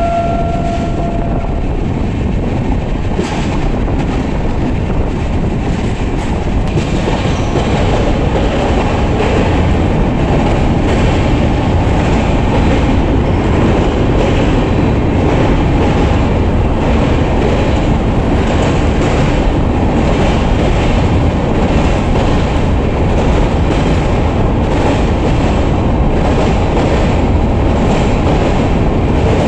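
Express train coaches running at speed, heard from an open coach door: a steady rumble of wheels on rail with clickety-clack from the rail joints, growing fuller from about seven seconds in as the train runs onto a steel truss bridge. A steady high tone stops about a second and a half in.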